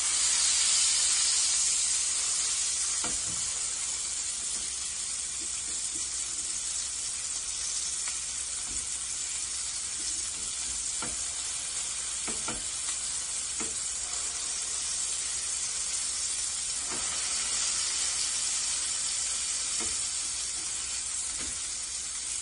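Lamb keema patties sizzling with a steady hiss as they shallow-fry in the oil they have released, their water cooked off. A metal slotted spatula gives a few light clicks and scrapes against the pan.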